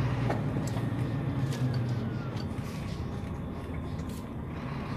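Heavy truck's engine running, heard from inside the cab while driving, with steady road noise; the low engine drone eases off about halfway through.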